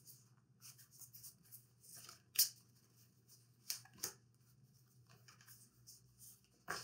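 Playing cards being thumbed through and laid down on a wooden table: a scattered run of soft card flicks and slides, the sharpest snap about two and a half seconds in.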